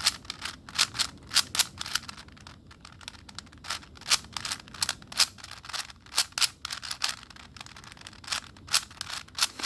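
A 4x4x4 Rubik's cube being turned by hand: quick plastic clicks and clacks of its layers, several a second and irregular, as it is solved like a 3x3.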